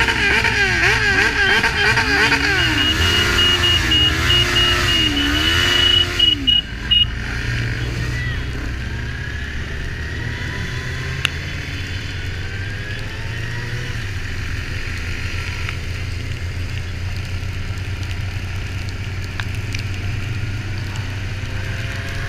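Motorcycle engines running steadily. For the first six or seven seconds a wailing siren sweeps up and down over them, then cuts off.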